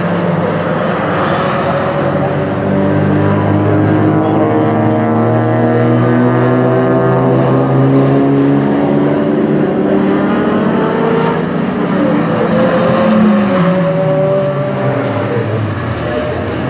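Turbocharged 1.8-litre Miata four-cylinder in the Exocet Off-Road buggy, pulling hard with its pitch climbing steadily for several seconds, then falling away about thirteen seconds in.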